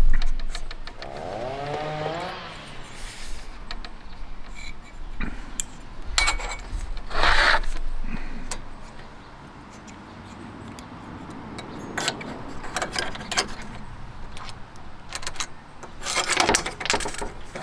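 Metal solar-panel mounting bracket and its hardware clicking and scraping against the panel's aluminium frame as the bracket is fitted by hand. There are scattered sharp clicks, a louder scrape about seven seconds in, and a cluster of clicks near the end.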